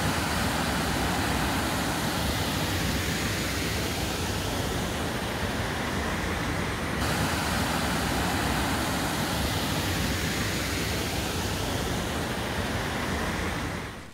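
Steady rushing roar of a waterfall's falling water, with a slight shift in tone about halfway through.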